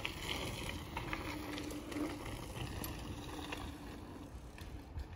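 Mountain bike rolling along a dirt trail: a steady rumble of tyres and wind, with scattered light clicks and rattles from the bike.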